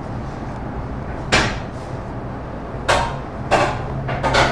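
Stainless steel ring cutter knocking down onto the granite counter through a sheet of biscuit dough: four separate sharp knocks at uneven intervals, over a steady low hum.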